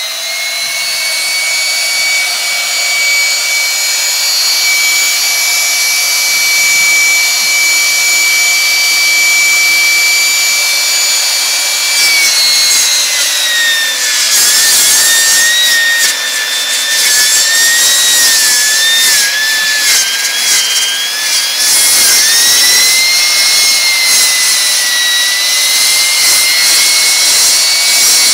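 Circular saw running at full speed with a steady high motor whine. About twelve seconds in, the pitch drops and wavers and a rasping cutting noise joins it as the blade bogs under load cutting through a wooden board. Near twenty-two seconds the whine climbs back up as the blade frees.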